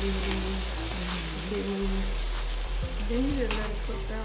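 Sliced top sirloin and onion rings sizzling in a skillet, a steady frying hiss. Near the end a spatula stirs and turns them in the pan.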